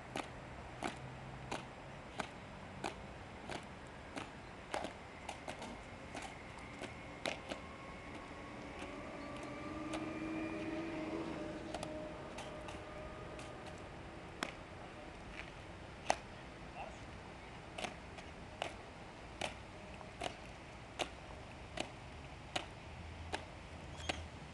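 Soldiers' boots striking stone paving in a slow, even marching step, about three steps every two seconds. A drawn-out pitched sound swells and fades about ten seconds in.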